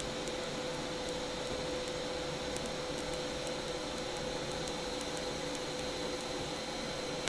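TIG welding arc on stainless steel: a steady hiss with a constant hum tone and faint scattered crackling ticks.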